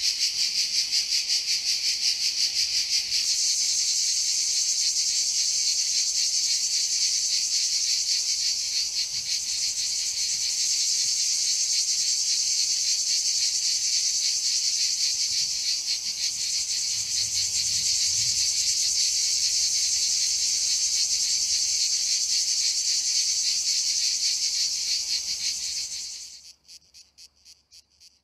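A shrill, steady chorus of chirring insects with a fast pulsing rhythm, fading out about two seconds before the end.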